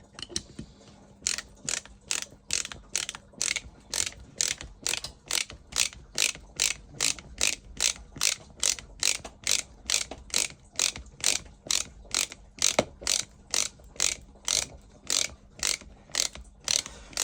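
Small ratchet screwdriver being worked back and forth to drive a 2.5-inch screw: a short burst of pawl clicks on each return stroke, about twice a second at an even pace, starting about a second in.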